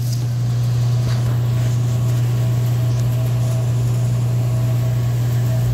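A steady low hum with a faint, steady higher tone above it.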